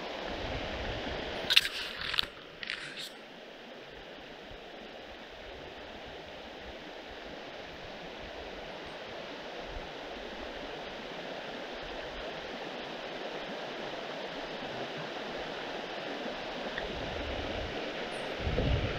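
River water running steadily, with a quick cluster of sharp clicks about one and a half to three seconds in and a low thump near the end.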